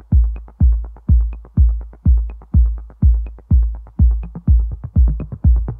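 Electronic background music: a deep kick drum beating steadily about twice a second, with a light high tick about once a second.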